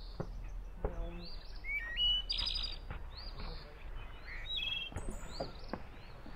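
Songbirds chirping and singing: a string of short, high calls, some rising, with a few faint taps.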